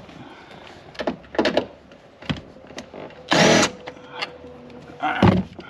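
Cordless drill-driver spinning in a short burst of about half a second, a little past halfway, backing out a 10 mm bolt from a rear seat side-panel bracket. Scattered clicks and knocks come before it, and another short loud burst follows near the end.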